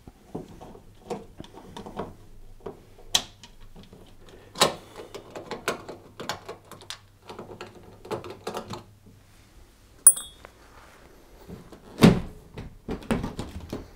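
Screws being undone at the back of a tumble dryer's metal top panel: a scatter of small clicks, scrapes and knocks from the screwdriver, screws and hands, with a short metallic clink about ten seconds in. About twelve seconds in, a louder knock as the top panel is shifted to be lifted off.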